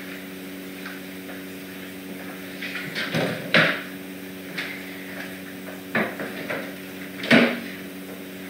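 A few sharp knocks and clacks, the loudest about three and a half seconds in and again near the end, over a steady low hum.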